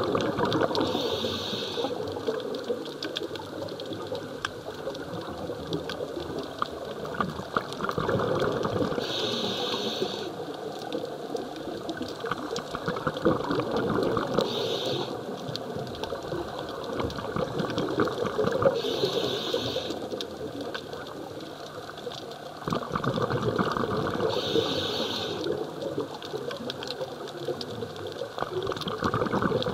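Scuba diver breathing through a regulator, heard underwater: five hissing inhales spaced five to eight seconds apart, with rushing, bubbling exhales between them.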